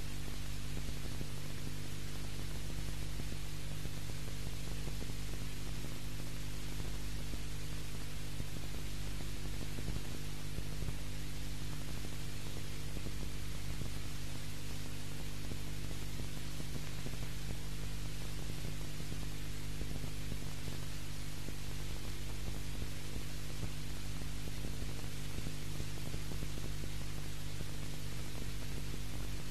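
Steady electrical hum over hiss, the background noise of an old VHS recording of a TV broadcast, unchanged throughout with no other sound.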